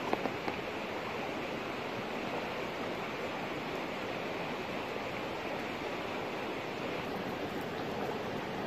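Steady rushing outdoor noise, even and unbroken, with a few faint ticks right at the start.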